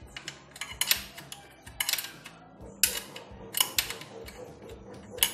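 Socket wrench working a bolt on a motorcycle disc brake caliper: sharp metallic clicks and clinks in short clusters, roughly once a second.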